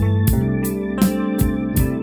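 Background music: sustained keyboard chords over a steady beat of about three beats a second.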